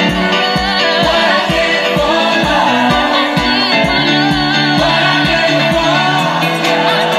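Music with a singing voice played loudly through a car audio system of Chess Audio speakers and subwoofers. A heavy bass beat thumps about twice a second and drops out near the end.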